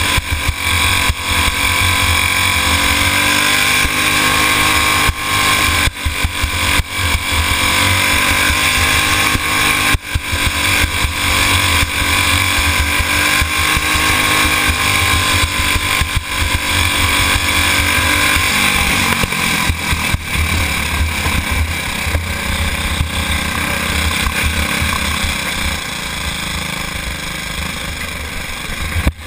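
Racing go-kart engine heard from an onboard camera, running hard at high revs lap after lap. The revs dip briefly several times and it is a little quieter near the end. A heavy low rumble rides under the engine note.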